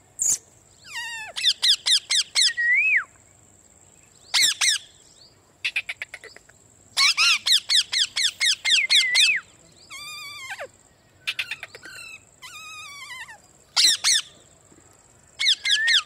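Rose-ringed parakeets screeching in rapid runs of shrill, pitch-sweeping calls, several notes a second, in repeated bursts with short pauses between them. The longest burst comes about seven seconds in.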